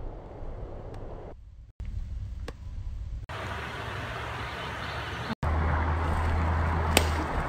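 Outdoor background noise, a steady rush with a low rumble, made of several short clips that cut in and out abruptly three times.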